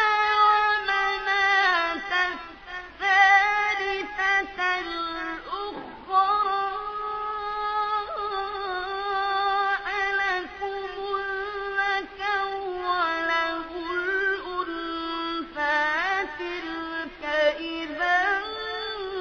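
A young reciter's high voice chanting the Quran in the slow, melodic tajweed style. Long held notes carry wavering ornamental turns, broken by a few short pauses for breath, with the pitch lifting in phrases near the end.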